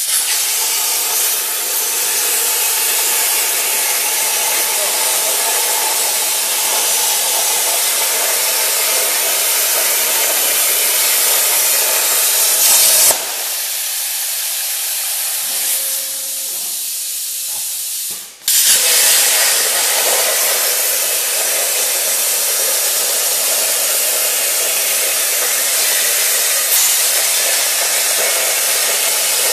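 CNC plasma cutting torch cutting metal plate: the arc and its air jet make a loud, steady hiss that starts abruptly. It stops about 13 seconds in, as a hole is finished. A quieter stretch of about five seconds follows, then the cutting hiss starts again near 19 seconds.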